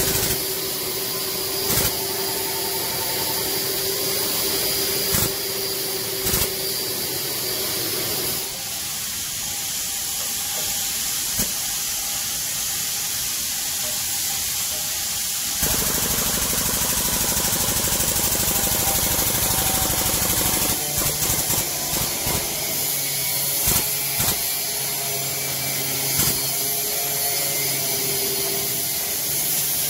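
Air-driven hydraulic jack of a 20-ton shop press running, a steady buzzing hiss with scattered clicks, as the press brake bends steel plate. The note of the running changes abruptly twice.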